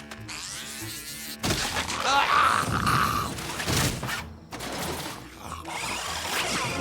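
Cartoon sound effects with a little music: a quieter steady hum at first, then from about a second and a half in a loud wavering high-pitched squeal, followed by noisier comic effects.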